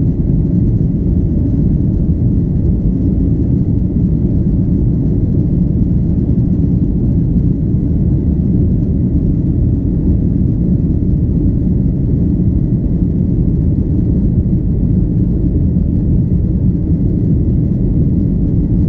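Boeing 737-9 airliner climbing after takeoff, heard from inside the passenger cabin: a loud, steady rumble of engines and airflow, with a faint steady high whine over it.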